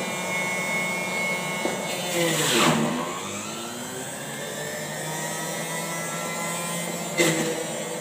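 Panasonic MJ-J176P juicer's electric motor running; about two seconds in its pitch drops sharply as produce is pressed down the chute onto the cutter, the motor slowing under the load, then slowly climbs back to speed. A sharp knock near the end.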